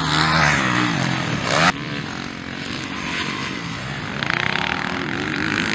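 Motocross dirt bike engines revving up and down as bikes race on the track. The loud engine sound cuts off suddenly just under two seconds in, and a quieter engine runs on after it.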